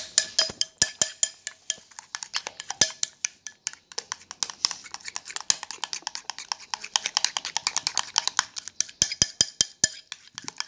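Wire whisk stirring a thick, creamy dessert mixture in a glass bowl, rapid clicking as it strikes the glass several times a second.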